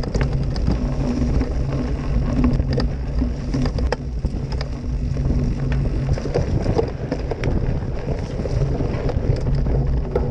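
Steady rumble of wind and trail vibration on the microphone of a camera riding along a mountain-bike trail, with scattered sharp clicks and rattles from the bike over the rough ground.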